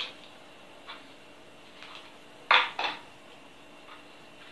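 Two sharp clinks of small hard kitchen items knocking, about a third of a second apart, about two and a half seconds in, after a few faint ticks.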